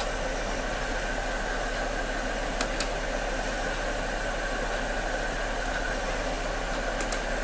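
Steady hiss with a constant low hum from the recording setup, broken by two pairs of quick computer mouse clicks, about two and a half seconds in and near the end.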